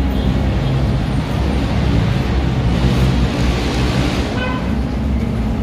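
Street traffic: vehicle engines running steadily, with a vehicle passing about three seconds in and a few short high tones a little after.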